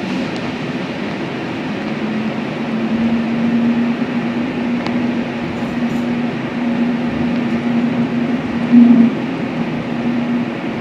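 Running noise heard inside a DCC Doppelmayr Cable Liner cable-hauled people-mover car travelling along its guideway. There is a steady rumble with a steady hum that sets in about two seconds in, and a brief louder bump near nine seconds.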